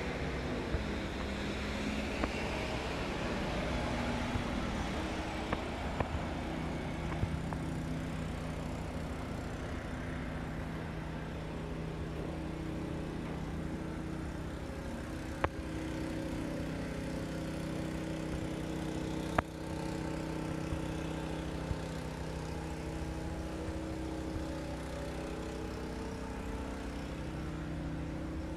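Steady outdoor urban background of distant engines and road traffic, with a low engine hum holding steady pitches. A few sharp clicks cut through it, the loudest about 19 seconds in.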